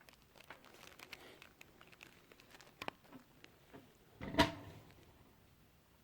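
Light handling clicks and rustles, then one sharp knock with a short ringing tail about four seconds in.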